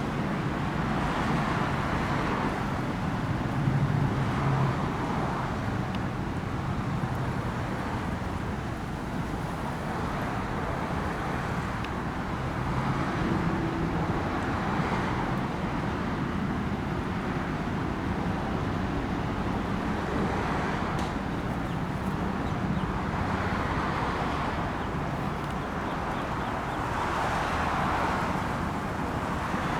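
Road traffic noise: a steady rumble of passing cars, with a vehicle swelling by every few seconds.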